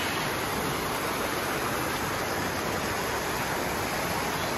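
Shallow, rocky river running steadily over stones: an even, unbroken rush of water.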